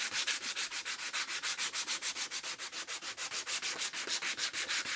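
120-grit sandpaper strip pulled back and forth around a stacked leather hammer handle, shoeshine style, in quick, even rasping strokes, several a second. The handle is being sanded to knock off the remaining factory clear coat.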